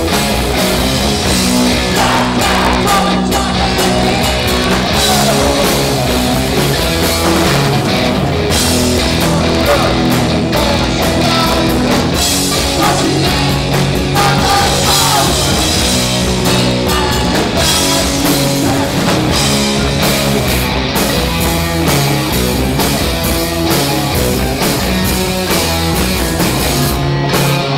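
Live hard rock band playing at full volume: distorted electric guitars, bass guitar and drums, with a muffled recording.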